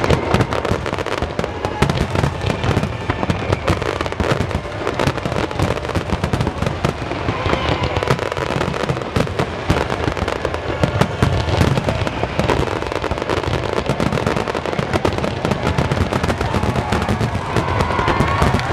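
Finale barrage of aerial fireworks: many shells bursting in rapid, overlapping bangs and crackles with hardly a gap, a near-continuous din.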